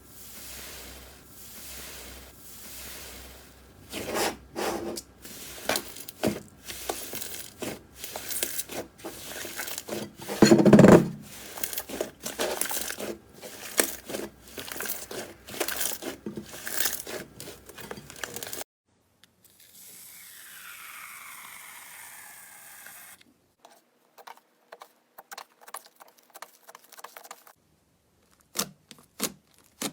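Slime being squeezed, stretched and pressed by hand: a dense run of sticky crackling pops and tearing sounds, with one louder squelch about eleven seconds in. After a sudden cut partway through, a quieter passage, a short silence, then a few scattered clicks and pops.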